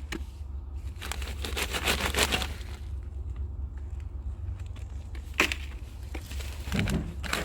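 Topsoil being scraped and pulled away from a potato grow bag: crackling, rustling bursts of soil being moved for the first couple of seconds, then a sharp knock about five and a half seconds in.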